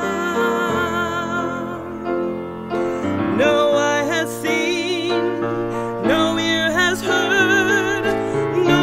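A woman's solo voice singing a worship song with wide vibrato over piano accompaniment. Held piano chords lead, and the voice comes in strongly about three seconds in.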